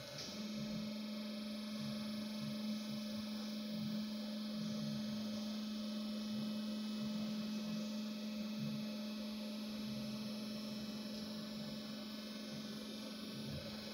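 Bomar Transverse 610.440 DGH metal-cutting band saw running with a steady low hum that starts just after the beginning and stops near the end.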